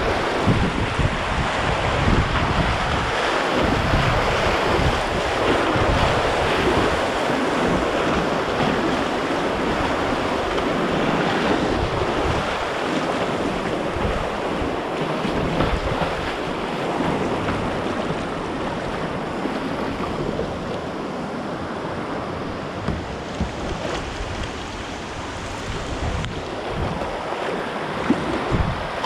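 Steady rush of churning whitewater in class II river rapids, with uneven gusts of wind buffeting the microphone.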